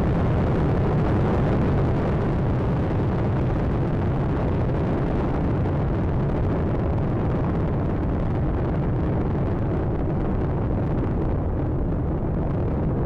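Steady rumbling noise of Space Shuttle Atlantis's solid rocket boosters and three main engines during ascent, with the highest part of the noise slowly fading.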